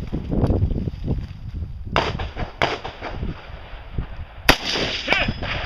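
Several rifle shots from an AR-type semi-automatic rifle, sharp cracks at uneven spacing, the loudest about four and a half seconds in.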